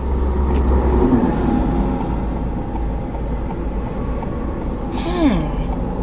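Steady low rumble of road vehicles, heavier for about the first second, with a faint murmur under it and a short falling voice sound about five seconds in.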